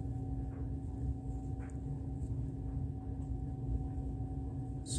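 Room tone: a steady low hum with a faint constant two-note drone and no distinct events.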